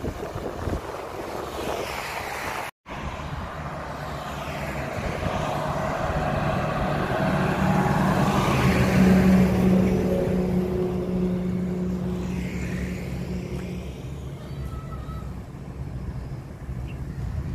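A heavy multi-axle dump truck's diesel engine and tyres passing close by. The sound builds to its loudest about eight to ten seconds in, then fades as the truck moves away.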